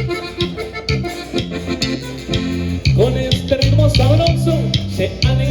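Live Latin dance-band music with accordion, plucked guitar and a heavy bass line over a steady beat. A gliding accordion melody comes in about three seconds in.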